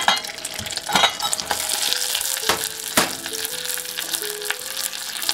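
Butter sizzling as it melts in a stainless steel saucepan, with a few sharp taps and scrapes as brown sugar is knocked from a bowl into the pan with a spatula.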